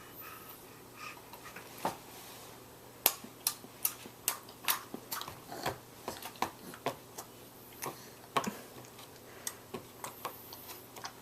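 Tongue clicks made with the mouth: a long run of sharp single clicks at about two a second, starting about three seconds in and going on until near the end.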